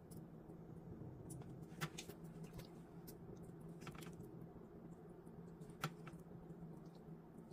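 Faint wet handling of raw gizzards being cleaned by hand in a steel pot, with small ticks and two sharp clicks, about two and six seconds in, over a steady low hum.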